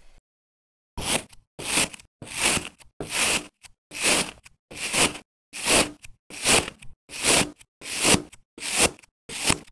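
Knife blade slicing through packed, moulded sand: a regular series of short crunches, roughly one every two-thirds of a second, each stroke crumbling the sand as the blade passes through.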